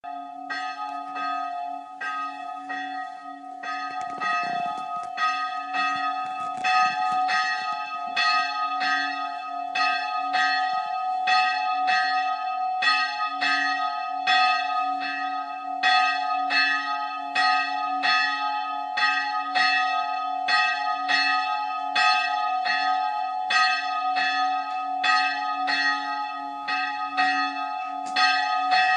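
The bell of Spiekeroog's old island church, a single church bell, ringing with evenly spaced strikes about one and a half a second. Each strike's ring carries on into the next.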